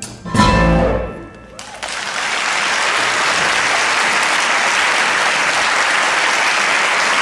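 A tango-jazz band of piano, bandoneón, guitar, double bass and drums strikes its final chord, which rings and fades, marking the end of the piece. From about two seconds in, an audience applauds steadily.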